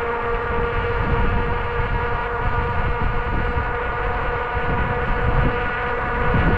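Electric bike drive motor whining steadily at cruising speed, with wind rumbling on the microphone.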